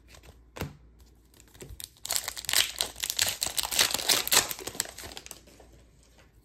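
Foil wrapper of a 2022-23 SP Authentic hockey card pack being torn open and crinkled. It makes a dense crackling run of about three seconds, starting about two seconds in, with a light tap before it.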